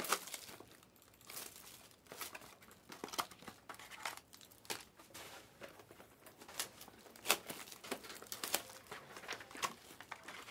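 Foil wrappers of Panini Obsidian trading-card packs crinkling and tearing as the packs are ripped open by hand, in irregular crackles and rustles.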